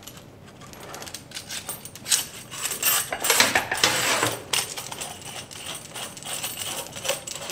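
Braided stainless-steel faucet supply hoses and brass fittings clinking and rattling as they are threaded through a kitchen faucet's mounting shank, an irregular run of small metallic clicks that is busiest in the middle.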